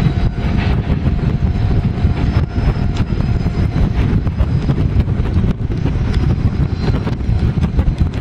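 Wind buffeting the microphone: a loud, choppy, irregular low rumble with no clear engine note.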